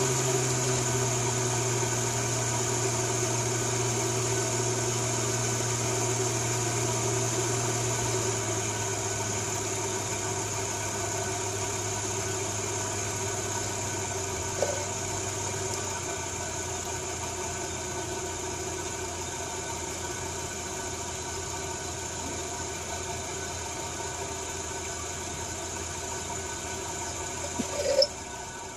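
Champion No. 50 electric forge blower running, its motor and fan making a steady hum. The hum drops in pitch and level twice, about a third and two-thirds of the way through, as the rheostat turns the speed down. A sharp click near the end.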